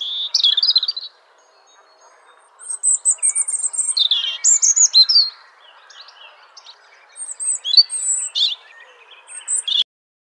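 Small songbirds singing, several quick high chirps and trills coming in three bouts, over a faint steady hiss of outdoor background. The birdsong cuts off suddenly just before the end.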